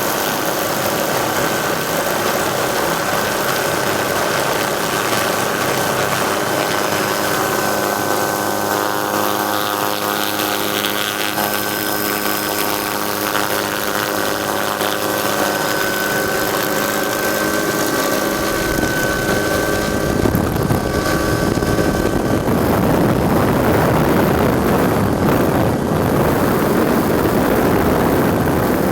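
Helicopter running, heard from on board: a steady whine made of several held tones, overtaken about two-thirds of the way in by a louder rushing noise.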